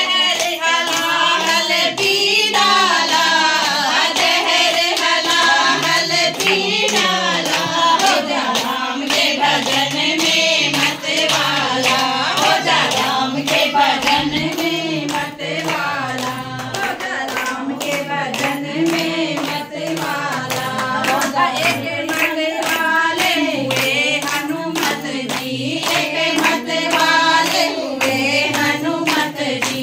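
A group of women singing a Hindi devotional bhajan to Ram together, unaccompanied, with steady rhythmic hand clapping keeping time.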